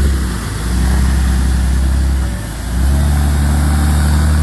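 Land Rover Discovery II's engine working under load as the vehicle crawls through a deep muddy rut, its revs dropping and picking up again twice.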